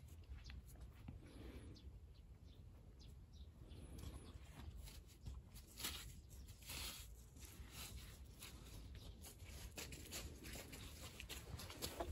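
Faint outdoor ambience: a low wind rumble on the microphone with scattered small clicks and rustles, a little louder about six to seven seconds in.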